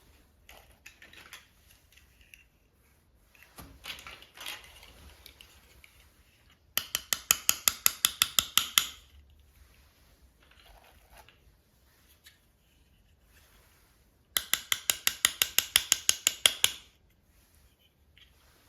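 Two runs of rapid, evenly spaced plastic ratcheting clicks, each lasting about two seconds, with lighter rustling and handling of toy packaging between them.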